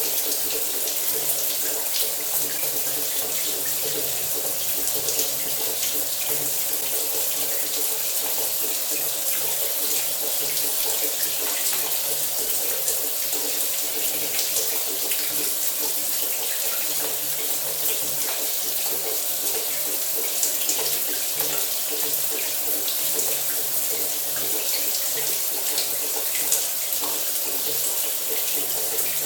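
Shower running: a steady, even spray of water falling, without change.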